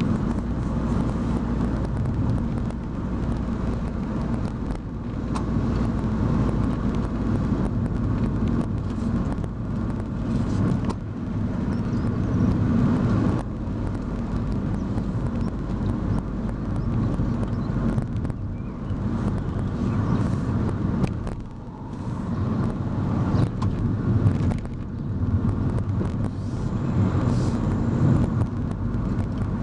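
Car driving on the road: steady engine drone and tyre and road noise, swelling and easing a little as the car goes through bends and slows.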